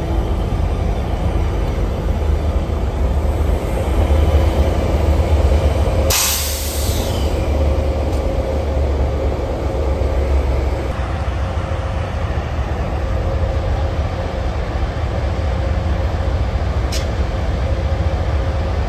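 Diesel locomotive engine running as a train rolls slowly past close by, a steady low rumble. A short sharp hiss of air sounds about six seconds in.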